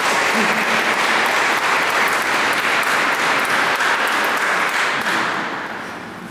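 Audience applauding in a dense, steady patter that dies away over the last second or so.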